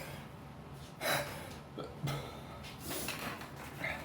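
A man breathing and sniffing close to the microphone: a few short, noisy breaths about a second apart.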